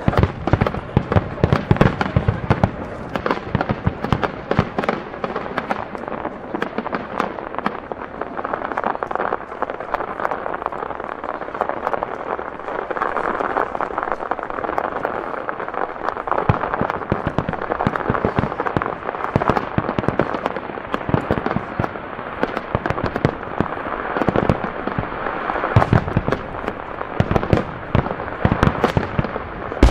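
Aerial fireworks display: a continuous rapid string of shell bursts and crackling bangs, with deeper booms mixed in at several points.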